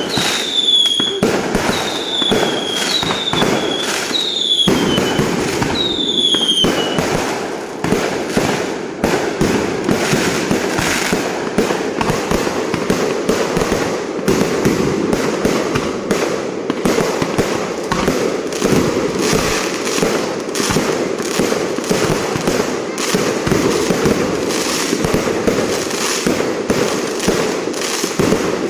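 Fireworks going off: about six whistling fireworks in the first seven seconds, each a short whistle falling in pitch, then a dense, continuous crackle of many small pops and bursts.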